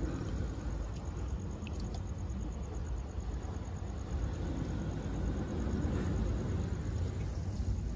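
Steady low rumble of surf and wind on a rocky sea shore, with a faint high pulsing trill above it.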